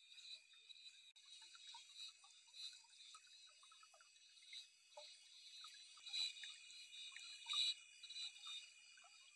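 Faint chorus of frogs and insects: steady high trilling with pulsed calls repeating, and scattered short chirps and clicks throughout.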